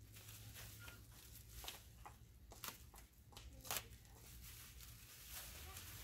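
Bubble-wrap packaging being pulled and peeled off aluminum skid plate panels: faint rustling and crinkling plastic with a few sharper crackles, the sharpest just before the four-second mark.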